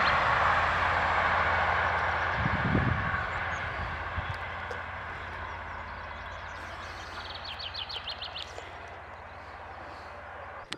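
A train that has just passed, its rumble fading steadily as it draws away, with a steady low hum underneath.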